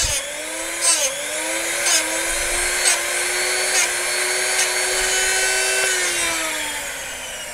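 Drill Doctor drill bit sharpener's motor running with a steady whine while the carbide tip of an SDS masonry bit is ground in it, a short grinding rasp about once a second as the chuck is turned. About six seconds in the motor is switched off and its whine falls in pitch as it winds down.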